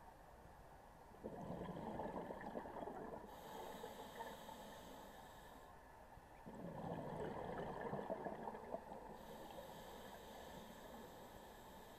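Scuba diver breathing through a regulator underwater: a long bubbling rush of exhaled air about a second in and again about six seconds in, each followed by the hiss of an inhalation through the regulator.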